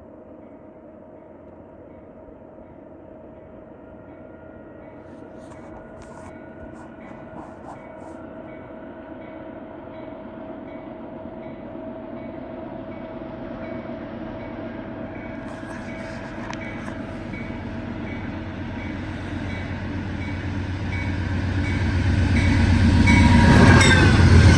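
Amtrak Vermonter passenger train approaching, its rumble and a steady held tone growing slowly louder, then rushing past close by near the end with a loud surge of engine and wheel noise as the pitch drops.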